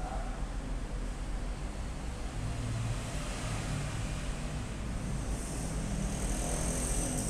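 Steady low background rumble, with a faint high whine joining about five seconds in.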